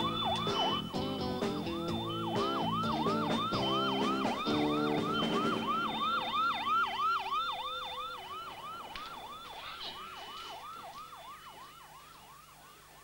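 Police car siren in a fast yelp, rising and falling about three times a second and growing steadily fainter through the second half. Music plays under it at first and fades out about halfway.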